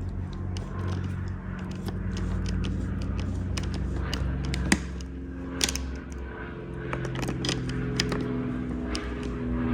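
Light metallic clicks and scrapes from a 10mm socket doing up small nuts on the ignition-shroud studs, only hand tight, over a steady low hum.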